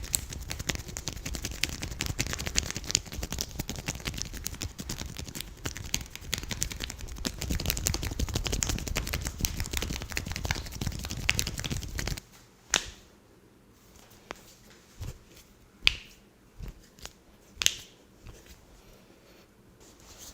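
Dense crackling and rubbing of hands working skin in a massage for about twelve seconds. Then it goes quiet, broken by four or five single sharp joint cracks.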